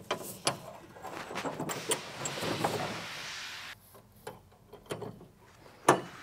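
Small metal clicks and rustling of hands fitting a large aluminum washer and nut onto a bolt inside a van's rear door, with one sharper click near the end.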